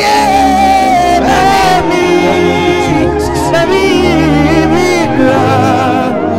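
A man singing a worship song into a handheld microphone, his voice held on long notes with a wavering vibrato, over held backing chords.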